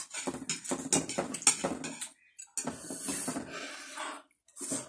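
Close-up eating sounds of instant noodles: wet chewing and short slurps, then one longer slurp lasting about a second and a half, a little past the middle.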